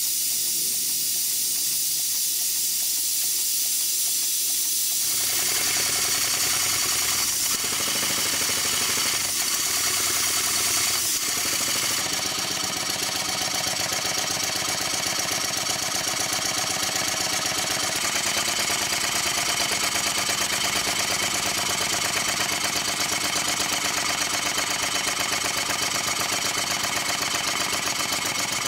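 Single-cylinder vertical model steam engine running on live steam: a steady hiss of steam with fast, even exhaust beats underneath. The sound changes abruptly a few times.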